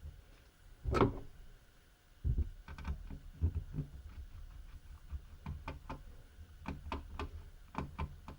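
Irregular small clicks and taps from about two seconds in: a small screwdriver working the tiny screws holding a laptop's Wi-Fi module. A single louder, briefly pitched sound comes about a second in.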